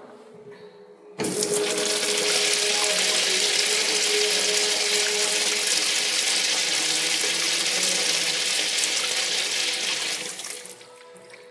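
A Crane wall urinal flushing through its chrome flush valve. A sudden rush of water starts about a second in, runs steadily for about nine seconds, then tapers off near the end.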